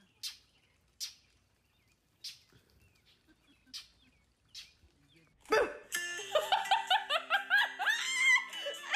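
A few short, sharp high squeaks or chirps, about one a second and irregular. About five and a half seconds in, loud music with quick bright notes over held low tones takes over.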